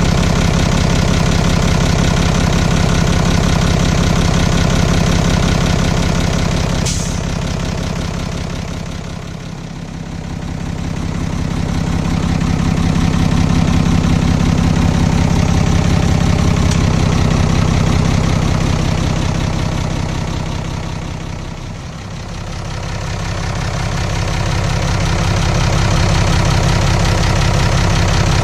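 Nissan Diesel FE6 inline-six diesel engine of a UD Trucks Condor idling steadily with an even pitch, without revving. Its sound dips in loudness twice for a few seconds. There is one sharp click about a quarter of the way in.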